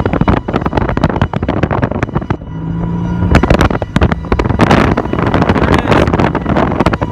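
Strong storm wind buffeting the microphone in gusts, with loud crackling and rumble and no clear siren tone above it.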